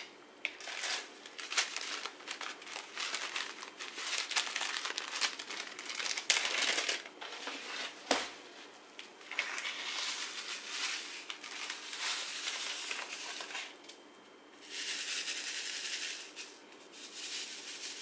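Small plastic zip bag of square diamond-painting drills crinkling and rustling as it is handled and the drills are poured into a plastic sorting tray, with one sharp click about eight seconds in. Near the end, two spells of steady rattling as the tray of drills is shaken.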